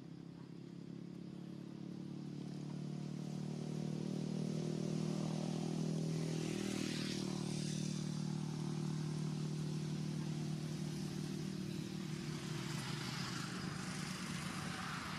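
A motor vehicle's engine running steadily at a low pitch, growing louder over the first few seconds, holding, then fading a little near the end.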